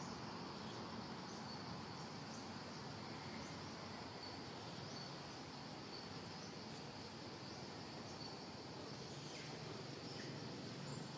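Steady insect chorus of crickets or cicadas, a thin continuous high drone with small regular chirps in it. A few faint high bird calls come in over it.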